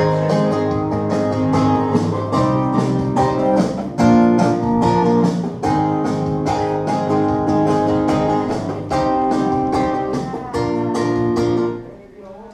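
Guitar music with chords strummed in a steady rhythm, stopping abruptly near the end.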